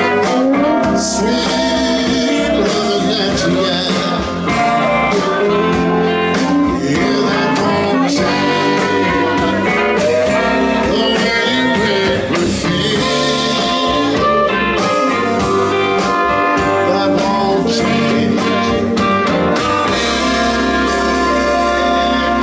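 Live blues band playing, with electric guitar to the fore over bass and drums in a steady beat.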